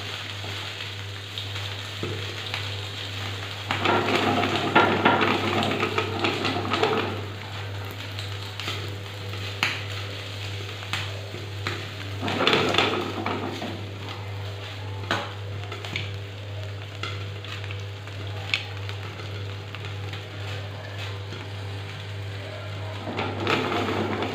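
Popcorn popping in hot oil and salt in a pan: a steady frying sizzle with scattered sharp pops, thinning out as the batch is nearly done. Two louder rattling stretches, about four seconds in and again about twelve seconds in, as the popcorn is stirred in the pan.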